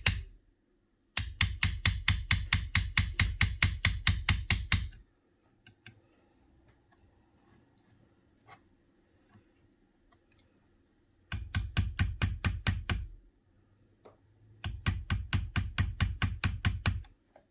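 Light hammer taps on a spatula held against the bent lip of a Surface Pro 4's frame, gently straightening it: three runs of quick, even taps, about four a second, the first lasting about four seconds.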